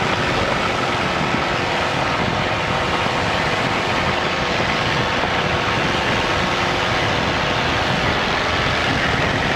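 Pitts Special aerobatic biplane's piston engine and propeller running at takeoff power as the plane rolls down the runway, a steady loud drone.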